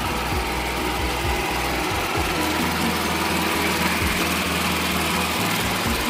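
Two-wheel walking tractor's small engine running steadily with a light rapid knock, pulling a leveller through a flooded rice paddy.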